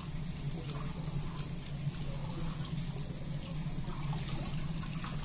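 Kitchen tap running into a stainless-steel sink as a bowl is rinsed by hand, with a few light knocks of dishware, over a steady low hum.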